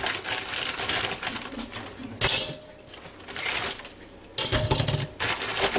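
Plastic zip bag rustling and frozen chicken legs clunking into the Ninja Foodi's metal crisper basket. Loud knocks come about two seconds in and again about four and a half seconds in, each with a brief ring from the basket.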